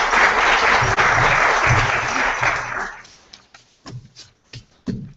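Audience applauding, dying away about three seconds in, then a few scattered last claps.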